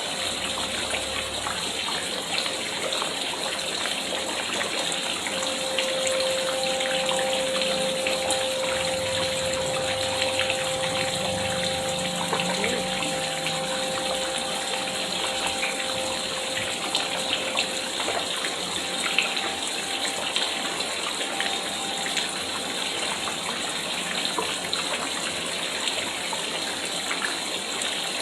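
Water pouring steadily into a pond, a small cascade splashing continuously.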